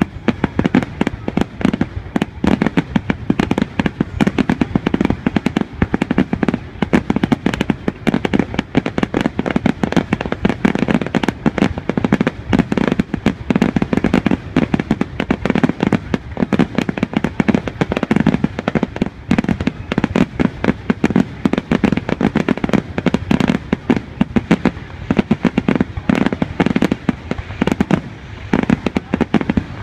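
Aerial fireworks display: firework shells bursting in a rapid, continuous barrage of loud bangs, many a second.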